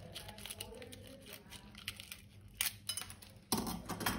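Light clicks and clinks of slime-making materials being handled, with a sharp click about two and a half seconds in and a louder burst of noise about three and a half seconds in.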